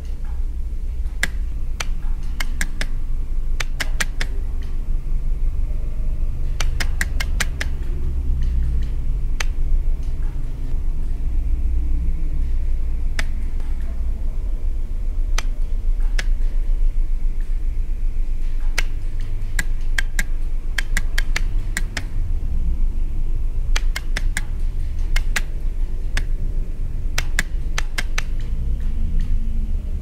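Electrical relays of the Blinkenlights light installation clicking as they switch the lamps on and off: sharp clicks in quick runs of several, at irregular intervals, over a steady low rumble.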